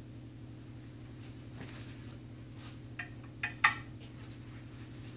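Metal parts clinking as the opened engine block is handled: three sharp clinks about three seconds in, the last the loudest, with soft rubbing of a shop rag and a steady low hum underneath.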